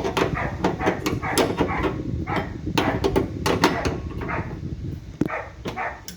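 A dog barking repeatedly in quick short barks, with a few sharp knocks among them.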